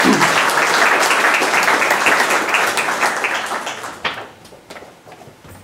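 Audience applauding, then dying away about four seconds in, leaving a few scattered knocks.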